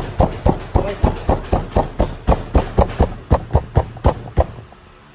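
A hand patting and slapping soft bread dough against a tabletop in a quick, even rhythm of about four to five slaps a second, stopping about four and a half seconds in.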